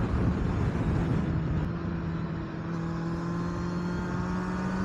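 Kawasaki Z800's inline-four engine running under way, its pitch rising slowly from about two seconds in, over heavy wind noise.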